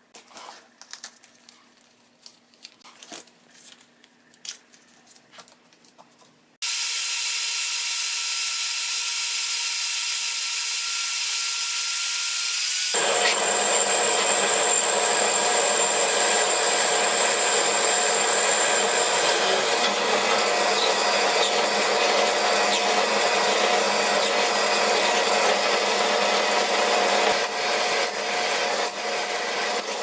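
Faint taps and scrapes of hand work on a wooden plane, then a drill press starts abruptly with a steady high whine. About 13 seconds in it grows louder and fuller as the twist drill cuts into a metal block clamped in the drill press vise, and it runs steadily from there.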